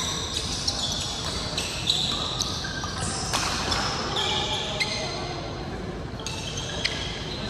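Many athletic shoes squeaking on a sports-court floor in short, high squeals, with sharp racket hits on shuttlecocks every second or two, in a large indoor hall full of badminton play.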